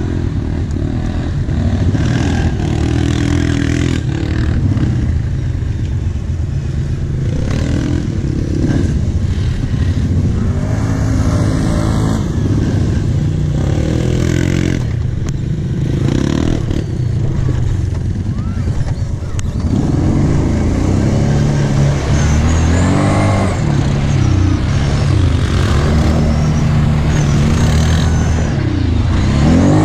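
Kawasaki Brute Force 750 ATV's V-twin engine running under load, its revs rising and falling repeatedly as the quad is ridden over rough ground. The revs run higher in the second half as it accelerates along the track.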